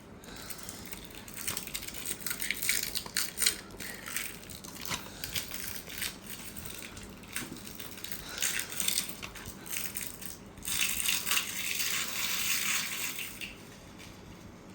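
Plastic shrink-wrap crinkling and tearing as it is ripped off a Blu-ray case, with scattered sharp crackles and clicks. It comes in uneven spells, the longest near the end.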